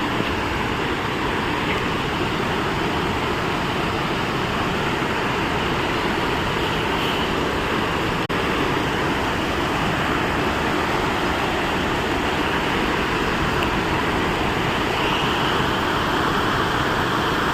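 Steady rushing noise with no pitch or rhythm, dropping out briefly about eight seconds in.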